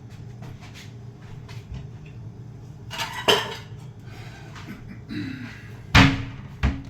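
Kitchen cupboards and cookware being handled: scattered light clicks, a clatter about three seconds in, and a loud knock with a brief ring near the end.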